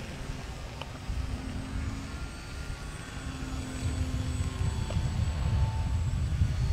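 Several foam RC combat planes' motors and propellers droning overhead as thin, steady tones at different pitches that come and go. Under them is a low, gusty rumble of wind on the microphone that grows louder about four seconds in.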